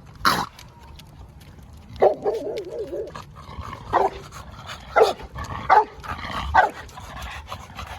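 Presa Canario guard dog barking a warning at something it has spotted, about six barks at uneven intervals.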